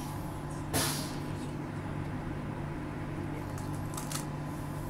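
Transperth A-series electric train standing at a platform, its onboard equipment humming steadily, with a short loud hiss about a second in and a few faint clicks near the end.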